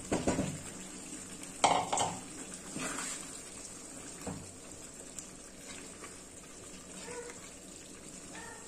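A spatula knocking and scraping against a bowl and a frying pan as fried vegetables are tipped into a thick cream sauce: several sharp knocks in the first half, then quieter stirring.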